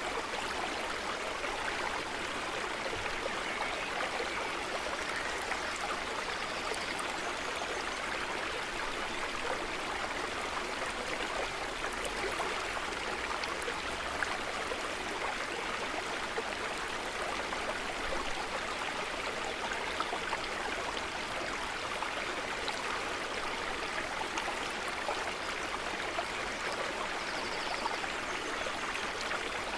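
A stream of running water, a steady rush with small trickles and drips through it.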